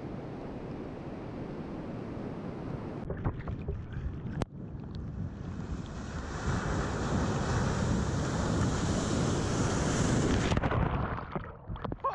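Breaking ocean surf with wind on the microphone. About three seconds in the sound changes to water washing close to a camera at water level. A single sharp knock follows, then the rush of a breaking wave grows loud and drops away near the end.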